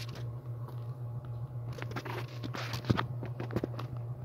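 Fingertip tapping and scraping on a cardboard box, a run of dry scratchy clicks and rubs with one sharper tap about three seconds in, over a steady low hum.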